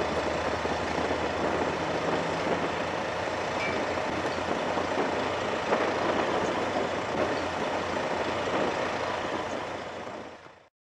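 Emergency vehicles idling at a standstill with a steady engine rumble and noise, fading out near the end.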